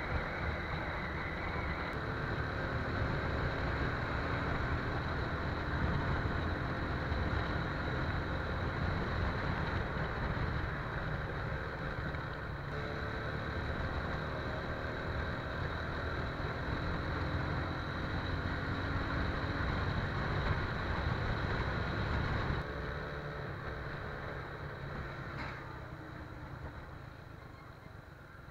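TVS Apache RTR 180's single-cylinder engine running on the move, its pitch rising and falling with the throttle, under a heavy wind rumble on the microphone. The sound drops suddenly about 23 seconds in and then fades away toward the end.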